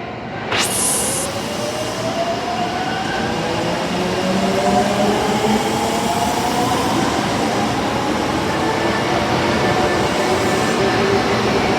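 Osaka Metro 22 series subway train pulling away. After a short hiss at the start, the traction motors' whine rises in pitch as it accelerates and then levels off, over steady running noise.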